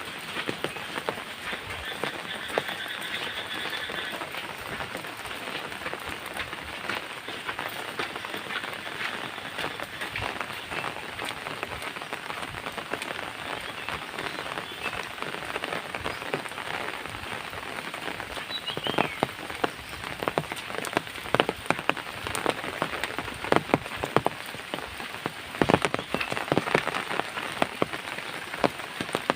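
Steady rain falling, with many close individual drops hitting, the drops getting heavier and more frequent about two-thirds of the way through.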